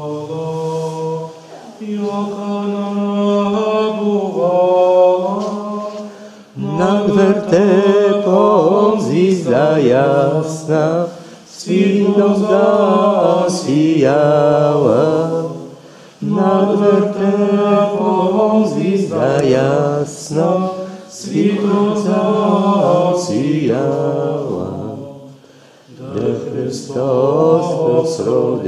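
A small group singing a Christmas carol unaccompanied, in phrases of about four to five seconds with short breaks for breath between them.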